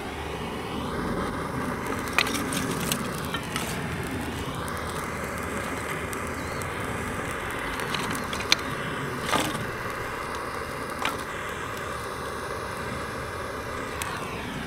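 Handheld gas torch burning with a steady hiss as its flame lights wood kindling, with a few sharp cracks as the kindling catches.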